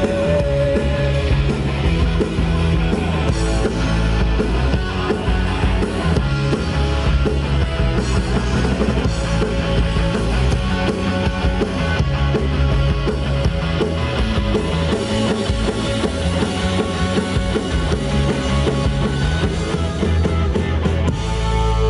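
Live rock band playing loud and steady on electric guitars and drum kit.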